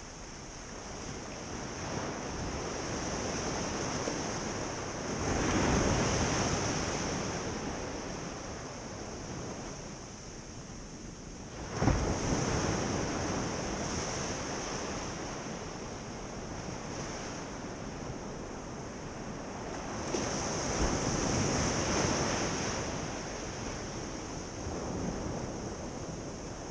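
Ocean surf washing onto a beach in rising and falling swells, one wave breaking with a sudden crash about twelve seconds in.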